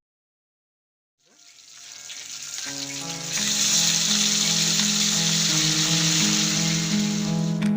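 Chicken legs frying in hot oil: after about a second of silence a sizzle fades in and grows loud, then holds steady, with background music underneath.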